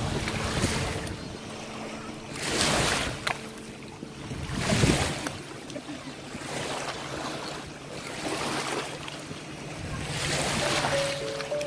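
Small waves lapping at the shore in the shallows, a wash of water swelling and fading about every two seconds. Background music comes in near the end.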